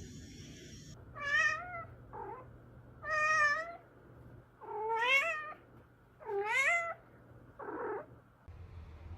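A cat meowing repeatedly, six separate meows about a second and a half apart, each bending up and down in pitch. The second and last are fainter.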